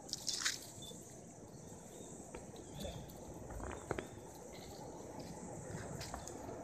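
Faint outdoor ambience of insects: a steady high-pitched buzzing, with a few soft clicks and rustles, the sharpest about four seconds in.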